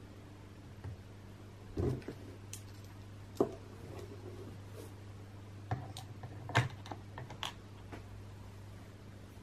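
Small plastic toy pieces, a Playmobil bucket and ladle, clicking and tapping as they are handled and set down on a plastic toy castle: a handful of light, separate knocks over a faint steady low hum.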